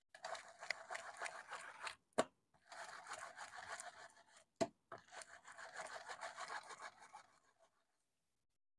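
Ripe palmyra palm fruit rubbed by hand against a perforated stainless-steel plate to press out its pulp: scraping in three long strokes, with two sharp taps between them.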